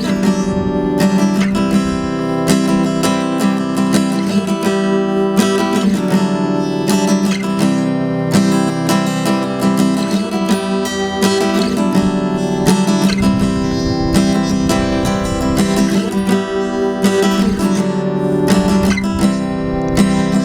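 Music: an acoustic guitar strummed in steady, repeated chords.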